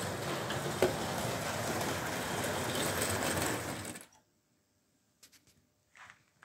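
S-gauge Stadtilm model train running on the track, a steady whirring rattle of motor and wheels with a few clicks, which cuts off abruptly about four seconds in, leaving near silence with a few faint ticks.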